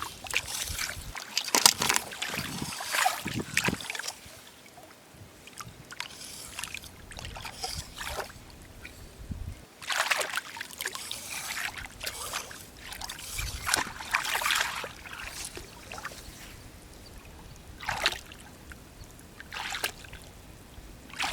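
Irregular splashing and scraping in wet sand and shallow seawater, from hands digging out clams on a tidal flat at low tide.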